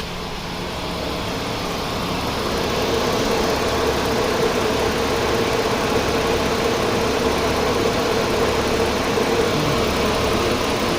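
2010 Chrysler Sebring's 2.7 L V6 idling steadily with the air conditioning running. It grows louder over the first few seconds, then holds steady.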